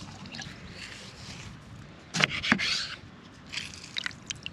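Kitchen handling sounds at a saucepan of brine: a couple of knocks with a short rustle about two seconds in, then a light rustle near the end as dried oregano is sprinkled into the pan.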